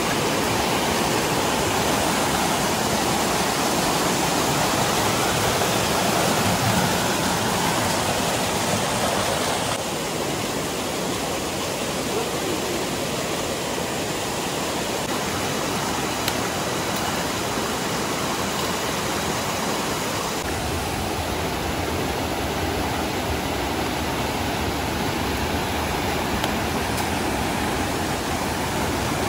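Rushing mountain stream tumbling over rocks and small rapids, a steady loud rush of water. Its tone shifts abruptly about ten seconds in and again about twenty seconds in.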